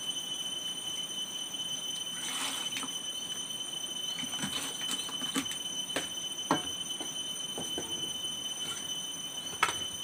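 Hollow knocks and clatter as a cooked bamboo tube is knocked against the floor to shake the fish out onto a plate. The knocks are scattered, with a sharp one about six and a half seconds in and another near the end, over steady high-pitched tones in the background.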